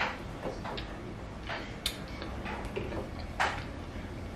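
Eating sounds from a seafood boil: a handful of short, scattered clicks and smacks, about six in all.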